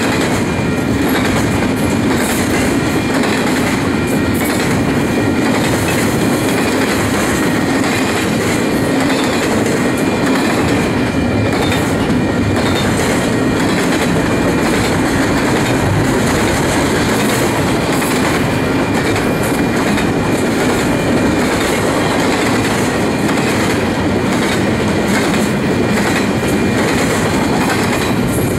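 A loaded double-stack intermodal freight train's well cars rolling past, steel wheels clattering over the rail joints in a steady clickety-clack, with faint high squeals from the wheels.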